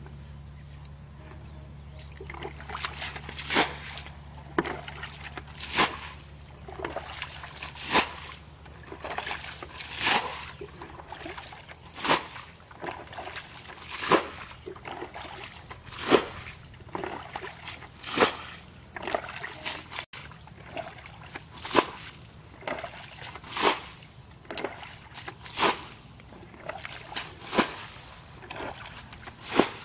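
Plastic bucket bailing muddy water out of a shallow pond: starting about two seconds in, a splash of thrown water comes about every two seconds, with smaller sloshes of the bucket scooping in between.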